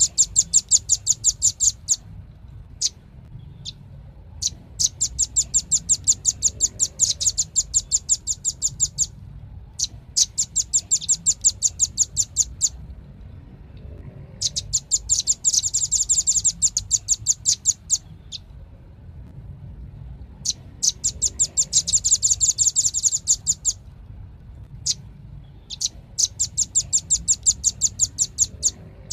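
Velvet-fronted nuthatch calling: rapid trills of sharp, high chip notes, about ten a second, in runs of two to four seconds with short pauses and a few single notes between, six runs in all.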